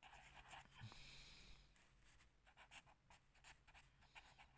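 Faint scratching of a pen writing on lined notebook paper: one longer stroke about a second in, then a run of short strokes.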